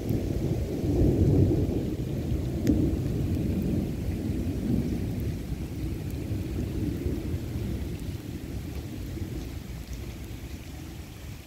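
Thunderstorm: a long low rumble of thunder over heavy rain. The rumble is loudest about a second in and fades slowly.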